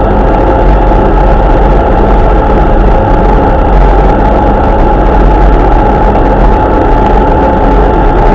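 Vehicle engine droning at a steady cruising speed, with a constant whine and low rumble mixed with tyre noise on a wet road, heard from inside the moving vehicle.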